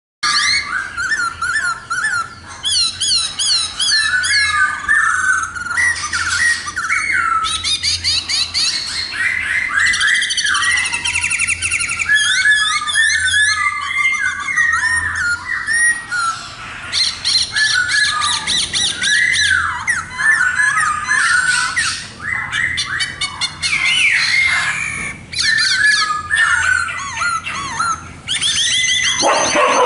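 A caged khướu mun laughingthrush singing loudly and without pause: a long, varied song of quickly repeated rich whistled phrases mixed with fast, high, repeated trilling notes. A faint steady low hum lies underneath.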